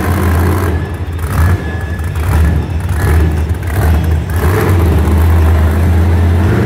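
Monster truck engine revving in repeated surges over a loud low drone, rising and falling several times as the truck is held up on its back wheels in a wheelie.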